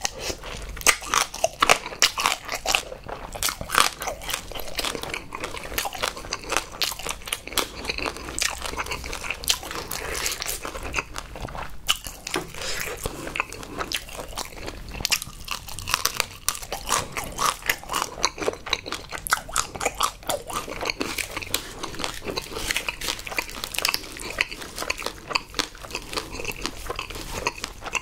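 Close-miked eating of spicy marinated raw crab: crab shell crunching and cracking as it is bitten and pulled apart, with wet chewing, a dense run of crisp clicks throughout.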